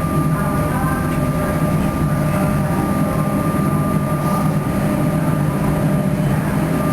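Electric suburban train running with a steady low hum and a thin, high, steady whine above it.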